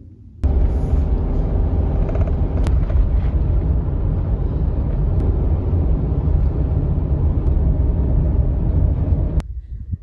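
Car driving on a paved road, heard from inside the cabin: a steady low engine and road rumble with a constant hum. It starts suddenly about half a second in and cuts off shortly before the end.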